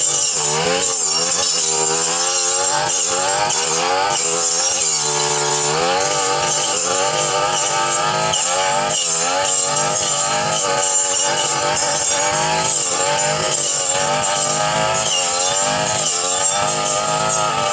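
Two-stroke brush cutter engine running hard while cutting through dense overgrown brush. Its pitch keeps dipping and recovering as the blade bites into the growth, with a high whine on top.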